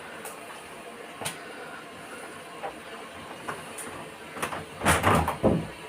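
Bosch washing machine running on a quick wash after its blocked drain filter was cleared, with a steady hiss and scattered clicks, and a short burst of knocks and clatter about five seconds in.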